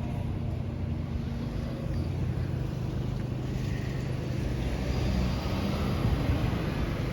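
Steady low rumble of road traffic and vehicle engines, with a faint low hum and no siren.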